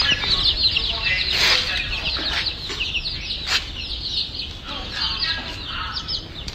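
A brood of young chicks peeping: many short, high chirps overlapping in a rapid, continuous chorus.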